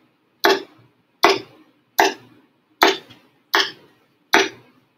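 Hand claps at a steady pace, about one every 0.8 seconds, each followed by a short echo tail. The claps are made inside an anechoic chamber whose doors are closing, so the room is deadening the echo after each clap.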